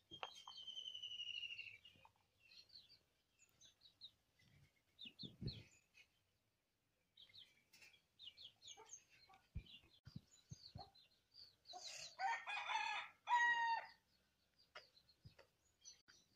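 A rooster crows once, about twelve seconds in, over scattered small bird chirps. A long falling whistled call opens the stretch, and a few soft knocks come in between.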